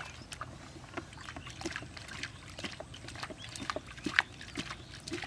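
Shallow paddy water splashing and sloshing in short, irregular bursts, as someone works through it by hand.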